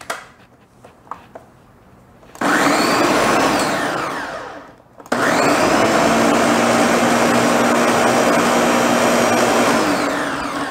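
Countertop blender mixing a liquid flan batter of milk, eggs and sugar, in two runs: a short burst of about two seconds that spins up and winds down, then a longer run of about five seconds that winds down near the end.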